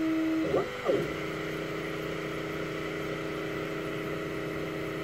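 Longer Ray5 10 W diode laser cutter at work: the gantry's stepper motors whine steadily over the hiss of the laser module's cooling fan. The whine glides up and down briefly about half a second in, as the head changes speed and direction, then settles into a steady tone again.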